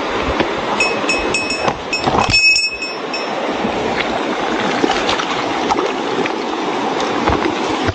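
Mountain stream rushing steadily over rocks. Within the first three seconds a quick series of short, high, pure-sounding notes rings out several times.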